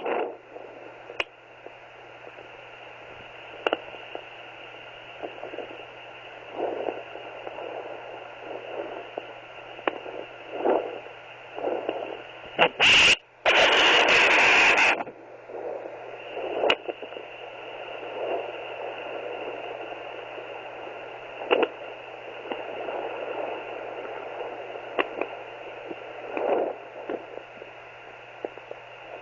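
Handheld fetal Doppler monitor hissing with static, with irregular short whooshes and scrapes as the probe is moved over the belly while searching for the fetal heartbeat. About halfway through comes a loud burst of noise lasting a couple of seconds.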